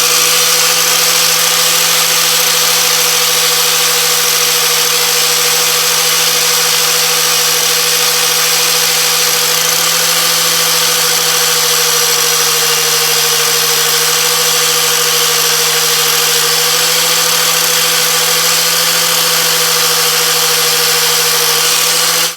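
Corded angle grinder with a wire wheel, running at a steady high speed and wire-brushing carbon and dirt off the top of a small engine's piston. It is a steady motor whine over a bright scratchy hiss, and it stops suddenly at the end.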